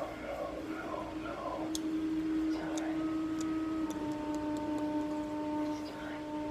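Light, irregular clicks and ticks over a steady hum that holds a few even tones, with a second tone joining about four seconds in.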